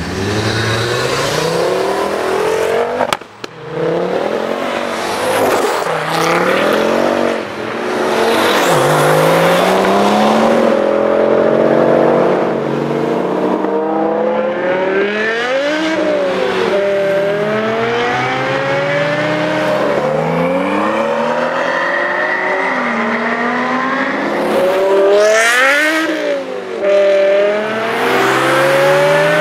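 BMW E60 M5's V10 engine accelerating hard in a series of pulls and fly-bys, its pitch climbing with the revs and dropping sharply at each upshift.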